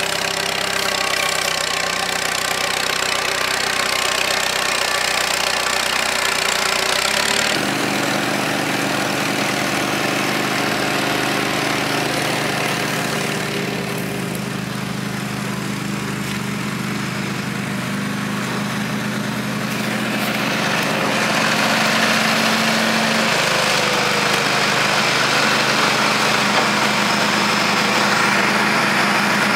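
Old tractor engine idling steadily. About seven seconds in the sound changes abruptly to a steadier engine hum with a clear low pitch.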